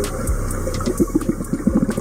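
Rushing, churning water with scattered clicks and knocks.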